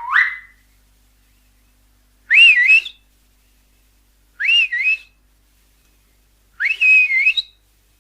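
Finger whistle: three short, high whistles about two seconds apart, each sweeping quickly up in pitch and then wavering, after the tail of another whistle right at the start.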